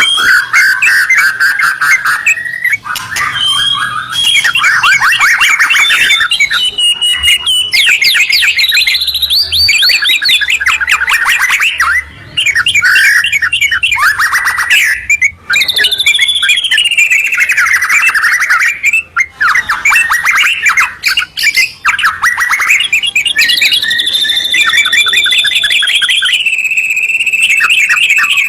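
White-rumped shama and yellow-vented bulbul singing loudly: a continuous run of rapid trills and sweeping whistled phrases, with a long steady whistled note near the end.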